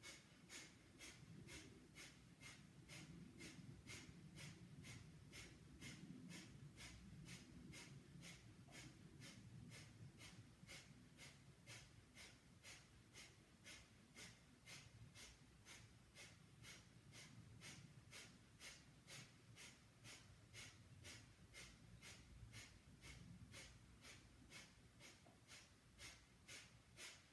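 Faint, rapid breath of fire: short, even, pumped breaths through the nose, about two a second, the rhythmic breathing of Kundalini yoga.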